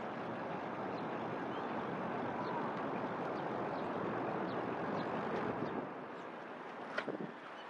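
Road traffic noise, with a passing car's tyre and engine noise swelling and then falling away about six seconds in. There is one sharp click near the end.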